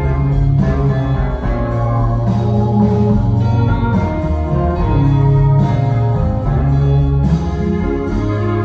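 Live band playing an instrumental passage, with guitar over sustained bass notes, recorded from the audience.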